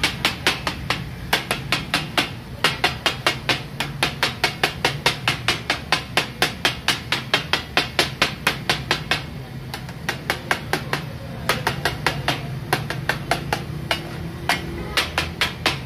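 Two steel spatulas striking a flat iron griddle (tawa), chopping maghaz taka tak, brain masala, in rapid metallic clacks. The clacks come about five a second, with a few brief pauses.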